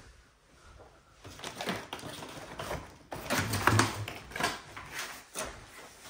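Cardboard packaging being handled: a cardboard insert tray lifted out of a monitor's shipping box, with irregular scrapes, rustles and knocks, loudest about halfway through.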